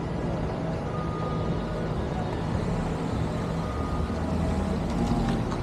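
A steady low mechanical hum, like an engine running, with a few faint clicks near the end.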